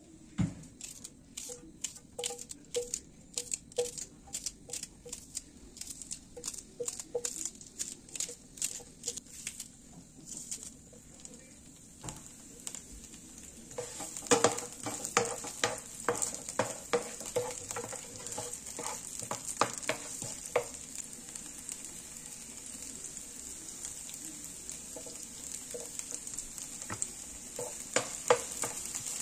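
Food frying in a pan and being stirred: a steady sizzle sets in about halfway through, with frequent knocks and scrapes of the utensil against the pan. Before it comes a run of quick, regular sharp knocks.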